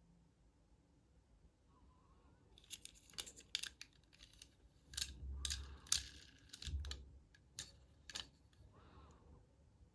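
Toy-car packaging of plastic blister and cardboard being handled and torn open: a run of sharp crackles and clicks, with two longer tearing rips a little past the middle.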